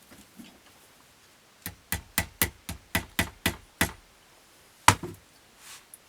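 Sharp knocks on wood: a quick run of about nine, roughly four a second, then a pause and one louder single knock.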